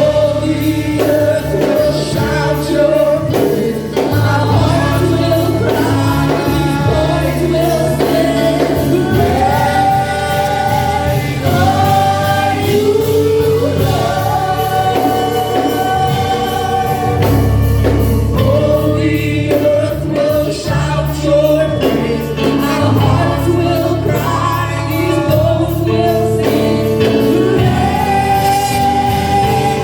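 Gospel choir singing over instrumental backing with a steady bass and beat.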